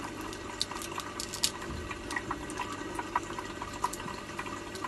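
Cooked crab being pulled apart by hand and eaten close to the microphone: irregular small cracks, clicks and mouth sounds. Under them runs a steady trickle of water, typical of an aquarium filter.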